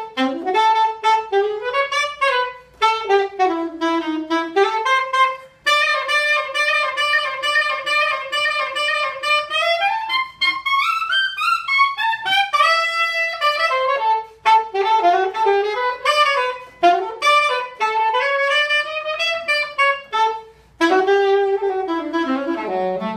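A solo saxophone improvising: quick running phrases, a long held note, and a smooth slide up and back down in pitch about halfway through, with short gaps for breath between phrases.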